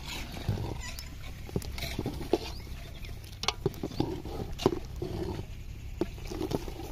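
A long metal ladle stirring boiling jaggery syrup in a metal cooking pot, clinking and scraping against the pot's sides and bottom in irregular clicks and knocks.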